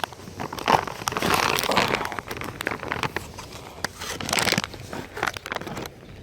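Plastic packet of dog treats crinkling and crackling as it is worked open by hand.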